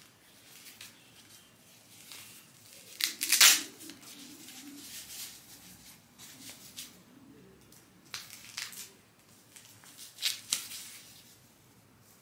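Hook-and-loop wrist straps on fingerless gym gloves ripping open and pressing shut as the gloves are put on: a few short tearing rasps, the loudest about three seconds in and two more near the end, with fabric rustling between.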